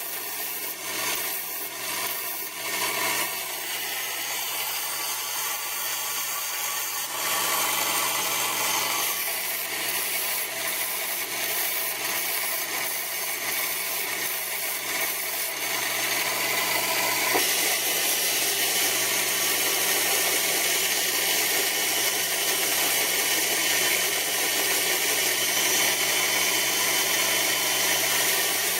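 A power tool running with a continuous rasping, abrasive noise over a steady motor hum. The sound shifts character about seven seconds in and again around seventeen seconds in.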